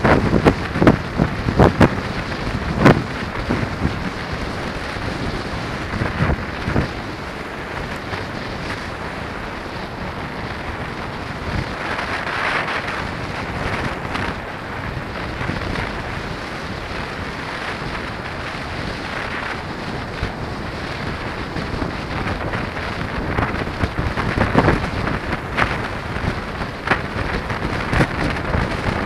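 Wind rushing over the camera microphone and tyres hissing through wet slush while a bike is ridden on a winter road. There are sharp knocks a few times in the first three seconds and again near the end, as from bumps in the road.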